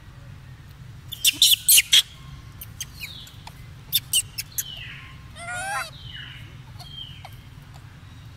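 High, sharp squeaks from a baby macaque: a quick run of four or five about a second in, three more about four seconds in, then a short wavering cry about five and a half seconds in.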